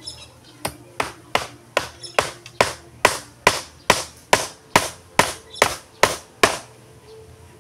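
Hammer driving a nail into an old wooden plank: about fifteen steady blows, a little over two a second, stopping about a second before the end.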